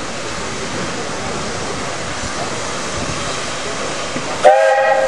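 A steam locomotive's whistle blows one loud blast, sounding several tones at once, starting suddenly about four and a half seconds in and still going at the end. Before it there is only a steady background hiss and rumble.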